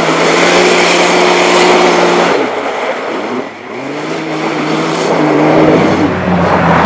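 Race car engine held at high revs, dropping off as the driver lifts about two and a half seconds in, then picking up again and held on the throttle.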